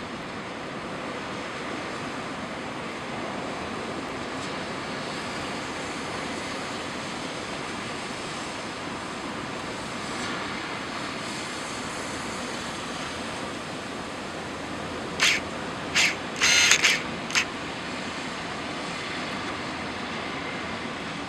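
Steady rushing noise of typhoon-driven surf and wind along a harbour. A handful of sharp clicks come close together about three-quarters of the way through.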